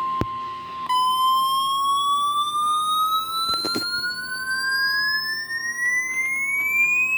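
NOAA Weather Radio warning alarm: the steady 1050 Hz attention tone, joined about a second in by the receiver's own alert tone sliding slowly and steadily upward in pitch, signalling an incoming severe thunderstorm warning. A couple of short clicks sound midway.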